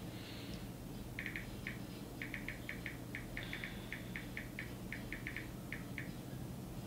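Smartphone keypad tapping: about two dozen short, high clicks in irregular runs as the screen is typed on, starting about a second in and stopping about a second before the end.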